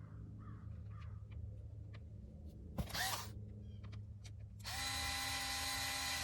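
Small electric screwdriver driving a Phillips screw back into a plastic door armrest panel, its motor running steadily for about a second and a half near the end. A short sharp sound about three seconds in comes before it.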